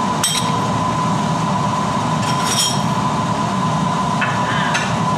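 Kitchen range hood exhaust fan running steadily, a low even noise with a thin steady whine, with a few light clinks of dishes, one of them ringing, near the middle.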